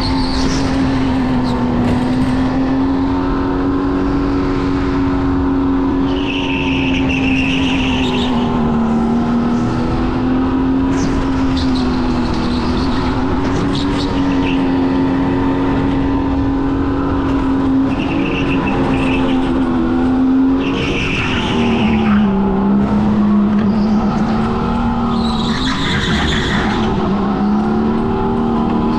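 Racing go-kart's motor running at a nearly steady pitch through a lap, sagging briefly about three quarters of the way through. The tyres squeal in several short bursts through the corners.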